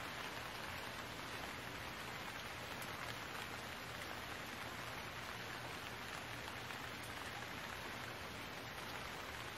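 Steady rain falling, an even, unchanging hiss.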